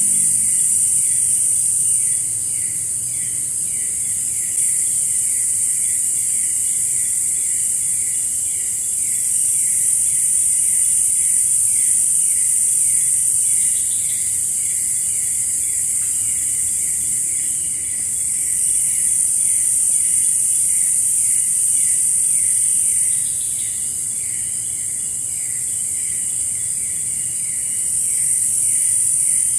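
Chorus of insects: a loud, steady high-pitched shrill that swells and eases every few seconds, over a second caller repeating short falling chirps a few times a second.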